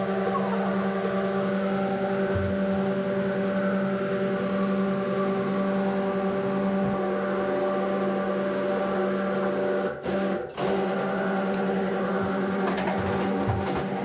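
Steady machine hum at one unchanging pitch, with two brief dropouts about ten seconds in.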